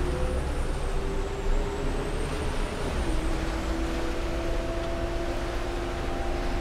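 Heuliez GX 317 natural-gas (CNG) city bus engine running, a steady low rumble with a humming tone that drops slightly in pitch about three seconds in. A faint high whine sounds over it in the first few seconds.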